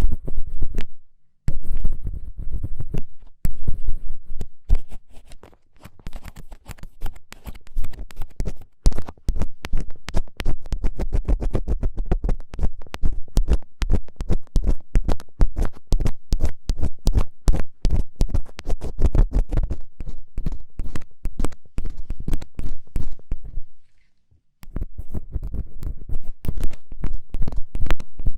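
Firm, rapid scratching of an ear pick worked close against an ASMR microphone, the 'kari-kari' ear-cleaning sound: many quick strokes a second with a heavy low rumble. It breaks off briefly about a second in and again about four seconds before the end.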